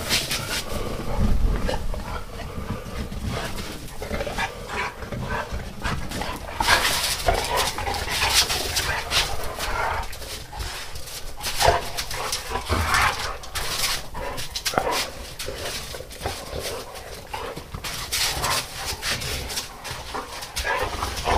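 Two dogs play-fighting, making irregular short dog noises mixed with scuffling and sharp knocks as they tussle.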